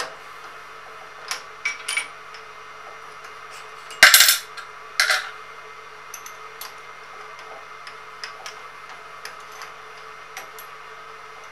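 Steel drill bits and small tooling being handled and set down on metal, clinking, with a loud clatter about four seconds in and a second one just after. A steady low hum runs underneath.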